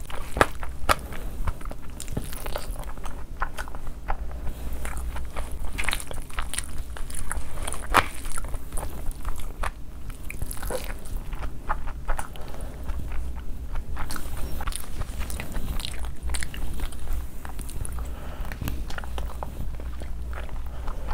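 Close-miked eating sounds: chewing a mouthful of chicken 65 fried rice, with irregular wet smacks and clicks of the mouth and the hand scooping rice from the plate.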